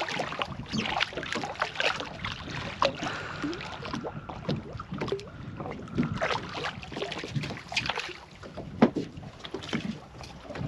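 Water splashing and lapping against a small fishing boat, with irregular knocks and clatter of handling on board; one sharper knock near the end.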